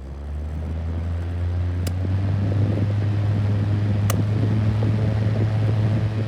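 Small electric box fan motor running with a steady low hum that grows louder over the first second, with two sharp clicks about two seconds apart.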